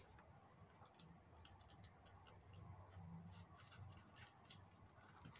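Near silence, with faint scattered light clicks from hands handling and pressing small felt leaves onto a popsicle-stick craft container.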